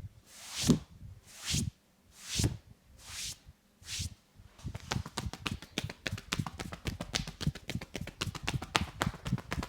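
Barber's hands at work in an Indian head massage. First come swishing rubs about once a second, each ending in a soft slap. From about five seconds in there is a fast run of rhythmic tapping slaps, several a second.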